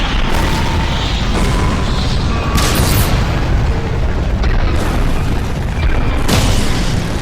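Dubbed-in explosion sound effects: a series of about five booming blasts, a second or so apart, over a continuous deep rumble, with background music faintly underneath.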